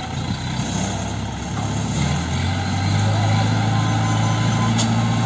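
Mobile crane's diesel engine running under load while lifting an overturned truck. It builds to a louder, steady drone about two to three seconds in and holds there.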